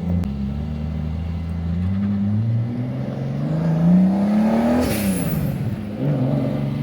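Big-turbo 2JZ straight-six in a Nissan Cima revving: the revs climb steadily for about three seconds, then a short burst of hiss comes as the revs fall sharply, and it settles back to a low idle.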